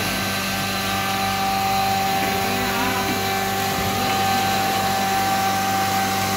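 Electric motor-driven machinery running steadily: a constant low hum with a steady whine over it.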